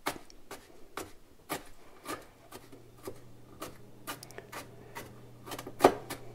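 Kitchen knife chopping pickled jalapeño slices on a plastic cutting board: steady taps of the blade on the board about twice a second, with one louder knock near the end.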